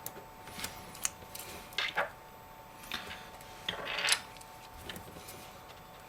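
Small repair tools and tiny parts of an iPhone 5 screen assembly clicking and scraping in irregular handling noises, loudest about 2 and 4 seconds in, over a faint steady hum.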